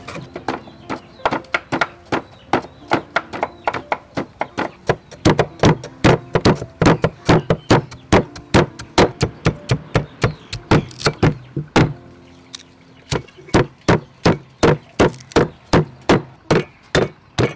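Pestle pounding sliced lemongrass and kaffir lime leaves in a heavy stone mortar: a steady rhythm of dull strikes, about three a second, with a short pause about twelve seconds in.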